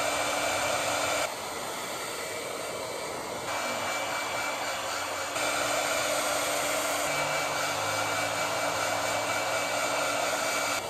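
Handheld hair dryer blowing steadily, with a thin high whine over the rush of air; its loudness steps abruptly down and back up a few times.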